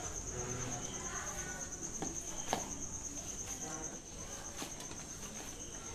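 Crickets trilling steadily in the background while hands knead stiff rice-flour dough in a steel bowl, with a few soft taps and squishes of the dough against the metal.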